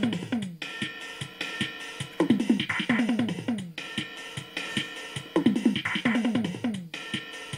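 Yamaha DD-10 electronic drum machine playing a rhythmic drum pattern. Quick runs of tom-like hits fall in pitch, and the phrase repeats about every three seconds.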